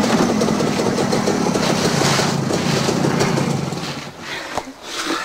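Two-stroke JAWA motorcycle engine running as the bike rolls up and stops, fading out about four seconds in.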